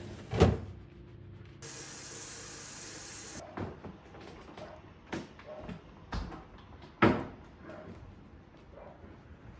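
Knocks and clatter of household things being handled and set down, with one steady hiss lasting about two seconds near the start.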